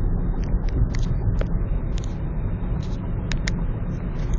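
Steady road and engine rumble inside a moving car's cabin, with a few light, irregular clicks over it.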